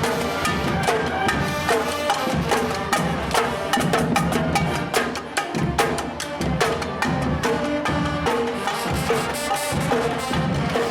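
Music with busy percussion: quick, sharp strikes over pitched instruments.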